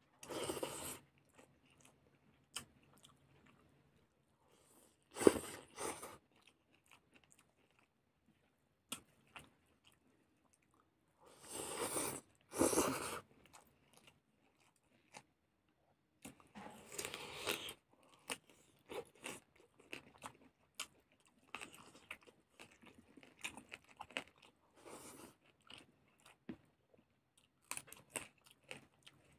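Close-up eating sounds: a person chewing and biting into a curried chicken leg and rice, with crunching and wet mouth noises, and fingers mixing rice on a plate. They come in short irregular bursts, with a few louder clusters among many small clicks.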